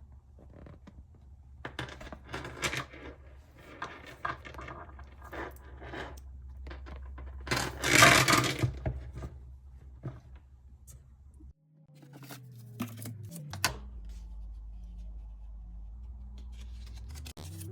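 Packaging being handled and opened: irregular rustling, crinkling and light scrapes and taps, with one loud rustle about eight seconds in. After about eleven seconds the sound cuts out briefly and gives way to a steady low hum with a few clicks.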